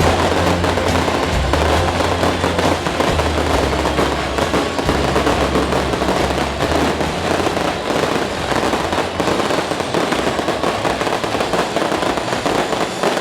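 Fireworks crackling in a dense, continuous stream of rapid pops, with a low steady hum of music underneath that fades out about halfway through.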